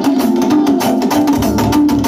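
Live band playing an up-tempo instrumental passage: fast, dense percussion over sustained keyboard chords, with bass notes coming in about one and a half seconds in.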